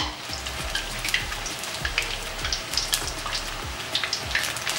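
Flat, puri-like snack discs deep-frying in hot oil in a steel kadai: a steady sizzle with many scattered crackles and pops.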